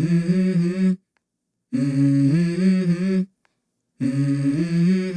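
Background music: a wordless hummed vocal melody in short phrases of about a second and a half, three in a row, each broken off by a moment of dead silence.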